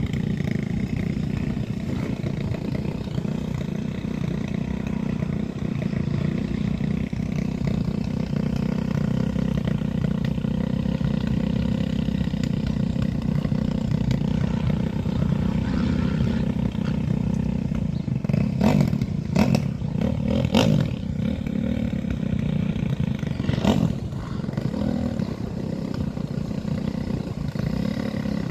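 Motocross dirt bike engines running, with a steady low rumble. Several sharp revs come about two-thirds of the way through.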